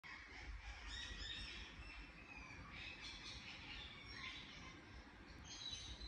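Indian ringneck parakeet giving faint, soft chirps and chatter in a few short bursts, over a low steady background hum.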